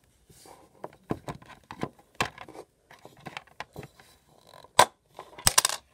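Plastic toy pony figure and playset being handled and moved: irregular clicks, taps and scrapes of hard plastic, with a few sharper knocks near the end.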